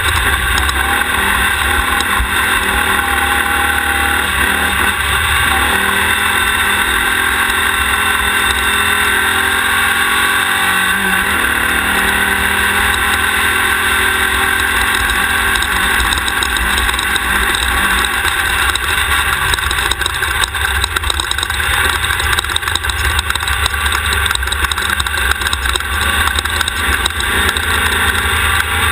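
Class 1600 off-road race car's engine running hard at speed, a loud continuous drone mixed with the noise of the ride. The engine note wavers, dipping and rising, about a quarter to a third of the way in.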